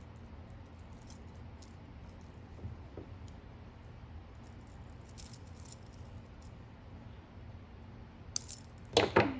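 Small faint clicks of pliers working metal jump rings. Near the end comes a short clatter of several sharp clinks as the dangling beetle wings and jump rings knock together.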